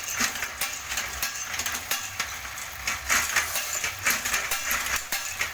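Satay skewer-making machine running, a rapid, irregular clatter of sharp clicks and knocks over a steady mechanical hum.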